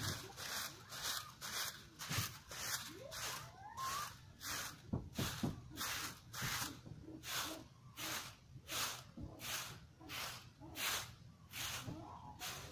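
Broom bristles swept briskly over grass and dry leaves, a steady rhythm of rustling strokes about two a second.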